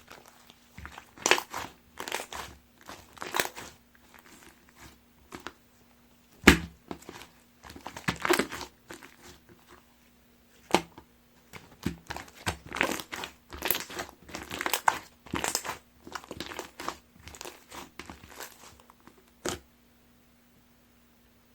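Grape-bead slime being squeezed and pressed by hand, giving irregular bursts of crackling, popping squishes, with a sharp knock about six seconds in and another near eleven. The handling stops a couple of seconds before the end, leaving a faint steady hum.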